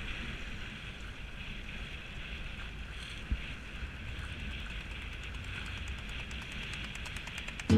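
Wind buffeting the microphone and water rushing along the hull of a Topper Taz sailing dinghy under way, with one brief knock about three seconds in.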